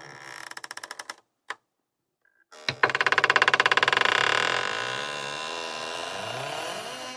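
Wooden door's hinges creaking. A fast rattling creak ends about a second in, a single click follows, then a long, loud creak starts near the three-second mark. It is made of rapid pulses, loudest at first, and draws out with a wavering pitch.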